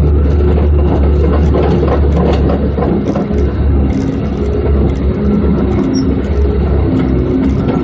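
Off-road vehicle's engine running steadily as it drives a rutted dirt trail, with scattered rattles and knocks.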